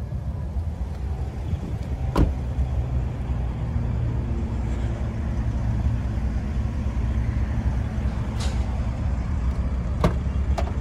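A car door shut with a single solid thump about two seconds in, and near the end two short clicks as the Infiniti Q50's trunk latch is released. A steady low rumble runs underneath.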